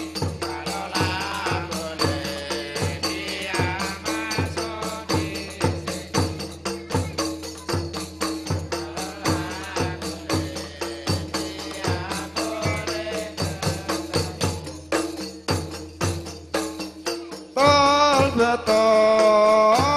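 Rodat music: frame drums beating a steady rhythm, with a voice singing over them. Near the end a louder chanted singing comes in suddenly.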